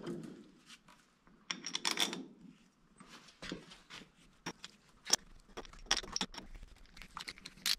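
Loose steel bolts clinking and jingling in the hand as they are picked out and started by hand into the bolt holes of an axle hub cover: a string of small, irregular metallic clicks.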